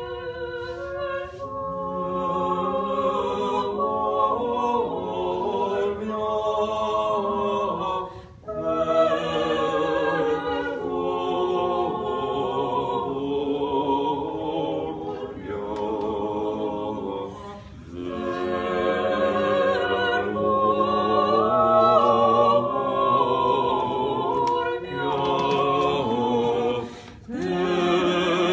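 A cappella vocal quartet singing in harmony, several voices sustaining long notes together, in phrases broken by three short pauses.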